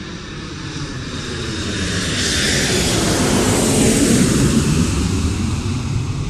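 An airplane flying past: the engine noise swells to its loudest about four seconds in and then begins to fade.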